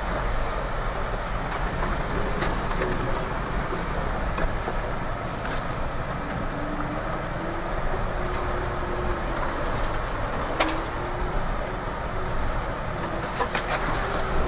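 Jeep driven slowly over a bumpy dirt trail, heard from inside the cab: a steady low rumble with the engine note rising and falling. Sharp knocks and rattles from the body over the bumps, one about two-thirds of the way in and several near the end.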